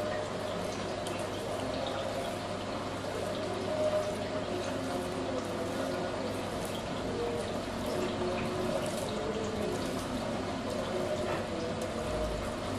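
Soft, wet scraping and squelching of grass jelly being rubbed over a stainless steel grater into a glass bowl, going on steadily over a low background hum.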